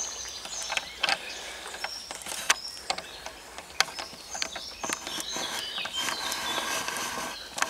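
Wood crackling and snapping irregularly in a small folding box stove under a boiling pot. Birds sing in the woods, more clearly in the second half.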